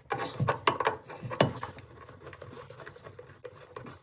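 A few sharp clicks and knocks of hand tools and metal fittings being handled in the first second and a half, then fainter scraping.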